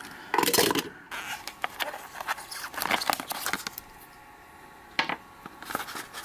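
Paper and cardboard packaging rustling and crinkling, with a few small clicks, as gloved hands handle a test-strip container and its box. The rustling is loudest in the first second and comes in short, irregular bursts.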